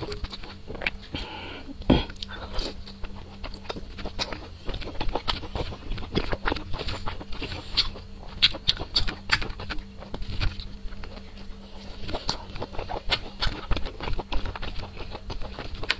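Close-miked chewing of a grilled sausage: frequent wet mouth clicks and smacks, with a louder bite about two seconds in.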